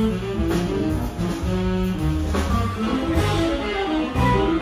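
A live band playing a blues, guitar to the fore over bass and drums.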